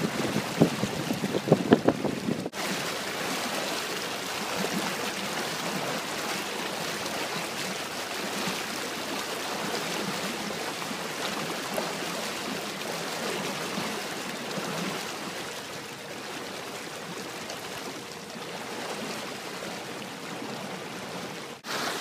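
Steady rush of water and wind past a moving boat on a lake, with wind buffeting the microphone in the first two seconds.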